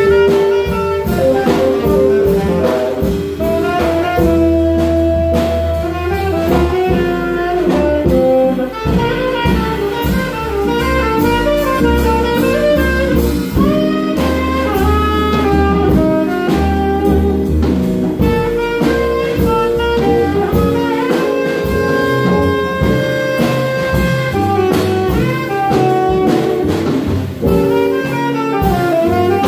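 Live jazz quintet playing: tenor and alto saxophones play melodic lines with some long held notes, over double bass, drum set with cymbals, and archtop guitar.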